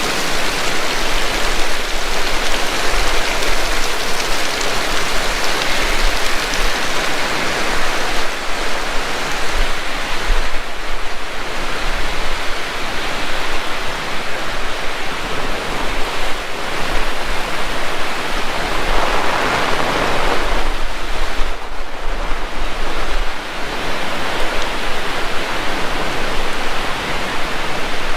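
Heavy rain pouring down in a steady, dense hiss that swells briefly about two-thirds of the way through.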